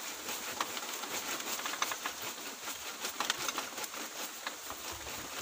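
Dry bamboo leaves and litter rustling and crackling as a hand clears them away from the base of a bamboo clump, with scattered small crackles over a steady hiss.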